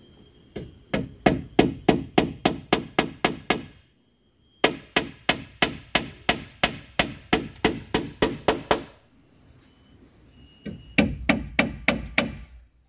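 Hammer striking the wooden poles of a hut wall in quick, even blows, about four a second, in three runs with short pauses between, as a wall pole is nailed onto the frame. Steady high insect buzzing carries on underneath.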